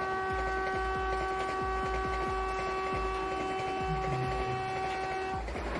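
Vande Bharat Express (Train 18) sounding one long, steady horn blast that cuts off about five seconds in, with a low rumble of the train underneath.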